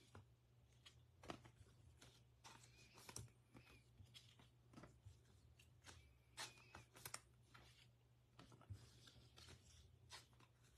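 Faint, scattered clicks and rustles of trading cards being handled and sorted by hand, over near-silent room tone.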